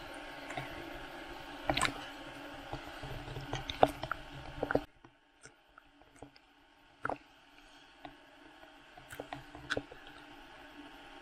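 Muffled ocean water sloshing and lapping against a waterproof camera housing held at the surface, with scattered knocks and clicks from splashes and handling. Just before halfway the sound drops sharply and turns dull, then a few more knocks follow.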